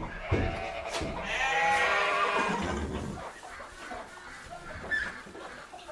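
Farmyard livestock: after a couple of knocks, an animal bleats in one long, wavering call about a second in, then only quieter shuffling and farm background remains.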